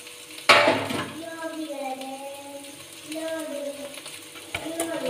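A voice singing a slow melody with long held notes, as in a background song. About half a second in, a loud sharp clatter cuts across it, with a smaller click near the end.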